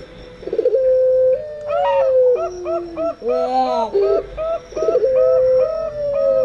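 Doves cooing together. Zebra doves (perkutut) give rapid series of short, pitched coos, and a puter dove gives a long drawn-out coo that slides down in pitch, with faint small-bird chirps above.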